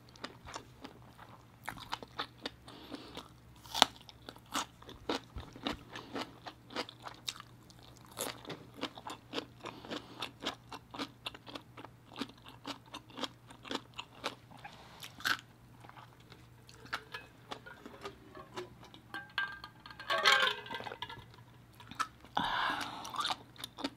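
Close-miked chewing and crunching of raw cucumber, many small crisp crunches and wet mouth clicks, with a louder stretch about twenty seconds in.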